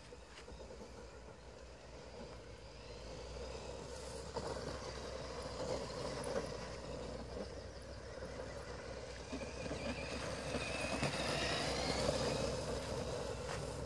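Axial Wraith RC truck driving over grass: its Titan 550 21-turn brushed electric motor and gearbox whine, rising in pitch as it speeds up and loudest as it passes close about twelve seconds in.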